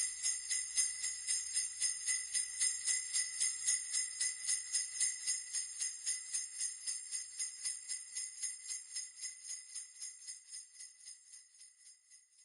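Sleigh bells shaken in a steady rhythm of a few shakes a second, slowly fading away until they are gone at the very end.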